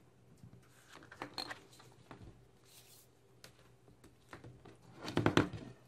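Quiet handling sounds of fabric work on a cutting mat: faint scrapes and rustles of tailor's chalk and cloth, with a short cluster of knocks and scrapes about five seconds in.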